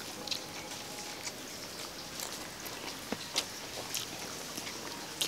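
Eating sounds: scattered short clicks and crackles of people chewing and smacking their lips and handling lettuce leaves with their hands, over a steady background hiss.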